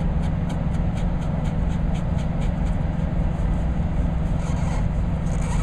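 Steady low rumble of a vehicle engine idling nearby, with faint high ticks about three times a second over it.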